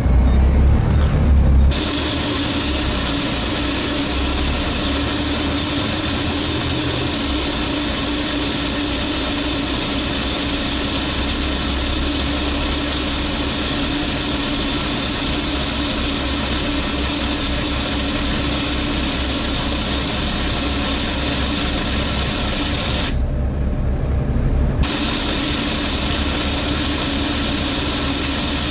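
A very loud suction noise aboard a Volvo B7TL Wright Eclipse Gemini double-decker bus: a steady rushing hiss with a hum in it, over the bus engine's low running. It starts about two seconds in, cuts out for a second or two near the end, then comes back. Its cause is unknown and is put down to poor maintenance.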